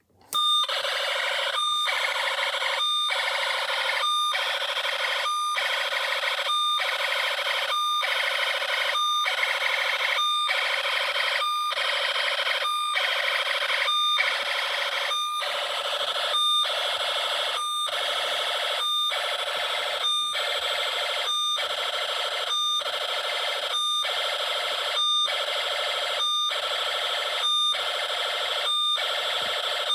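Emergency Alert System (EAS) style alarm tone, starting abruptly and pulsing about once a second, with a short break between pulses.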